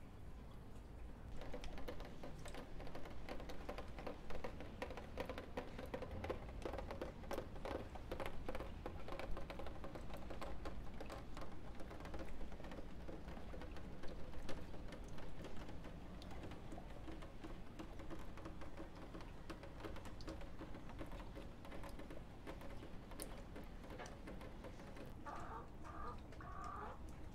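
Rainwater dripping and pattering in many small, irregular drips after a rain shower.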